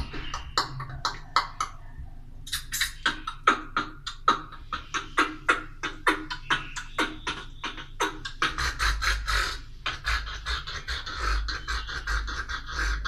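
Beatboxing with a hand cupped over the mouth: rapid mouth-made clicks, snaps and kick-like beats, with a short pause about two seconds in. From a little past the middle, a low humming bass and a steady buzzing tone run under the beats.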